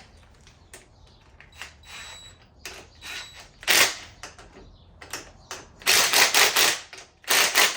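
Hand ratchet clicking in short runs of rapid clicks, loudest in two runs near the end, as bolts on the top of a Suzuki LTZ400 quad's steering stem are tightened down.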